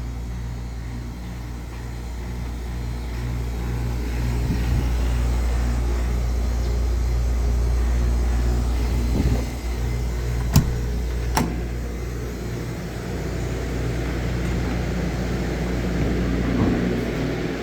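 Refrigeration condensing unit of a newly installed walk-in cold room running on its test run: a steady low hum with compressor tones, broken by two sharp clicks a little under a second apart about ten seconds in.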